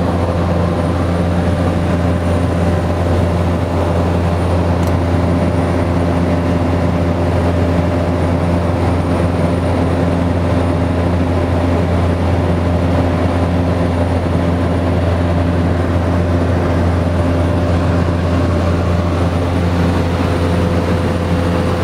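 Cessna 208 Caravan's PT6A turboprop engine and propeller heard from inside the cockpit, a steady loud drone. It holds a strong low hum and several steady tones that don't change in pitch or level.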